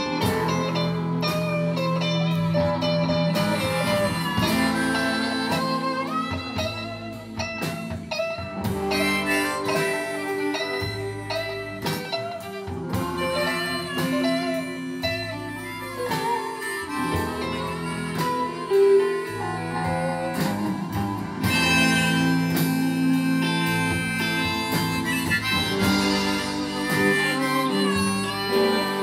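Live acoustic blues: a harmonica played in a neck rack, with long held and bending notes, over a strummed acoustic guitar.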